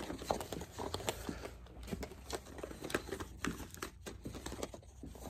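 Light plastic clicks and rattles as the pieces of a toy lightsaber are handled and its blue plastic blade is pushed onto the hilt, several small sharp clicks scattered through.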